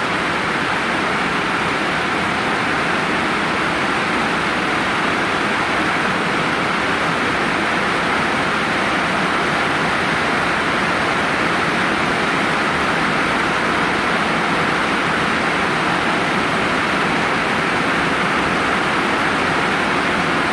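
Rain coming down steadily as a dense, even hiss, with no let-up or change.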